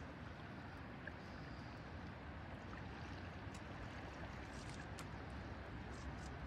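Steady rush of a shallow river running over a cobble bed, with a few faint ticks in it.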